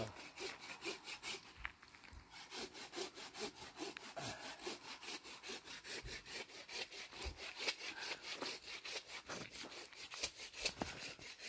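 Rapid, even rhythmic scraping, about five strokes a second, with a few faint low thuds.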